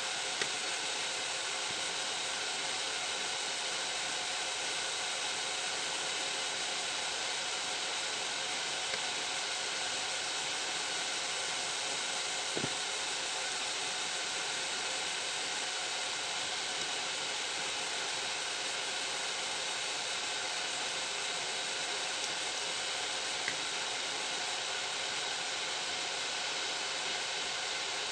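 Steady background hiss with a few faint, isolated ticks.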